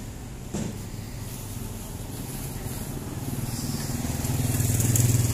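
Vehicle engine running with a low, steady pulsing hum, growing louder over the last two seconds.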